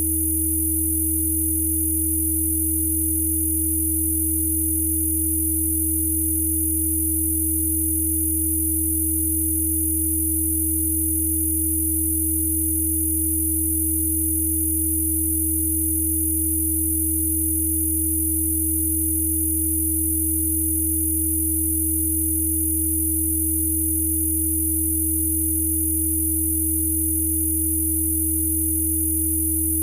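Steady, unchanging electronic sine tones of a Rife frequency programme. There is a clear mid tone, a low drone beneath it and faint very high tones above.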